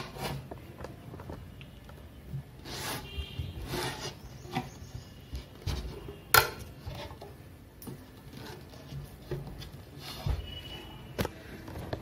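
Small folding study table being handled, its thin metal legs moved and set against the bed with scattered clicks, knocks and rubbing. The sharpest knock comes about six seconds in.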